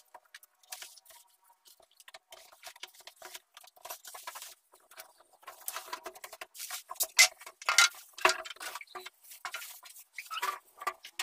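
Oven packaging being pulled off: cardboard, bubble wrap and a thin plastic bag crinkling and rustling in irregular crackles, loudest a little past halfway.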